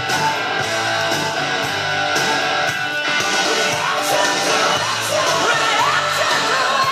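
A rock song with a singing voice and guitar, played back from a vinyl record on a Technics SL-QD22 turntable.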